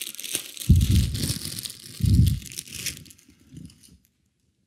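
Clear plastic packaging crinkling as it is handled close to the microphone, with two dull thumps about a second apart; the crinkling stops about three seconds in.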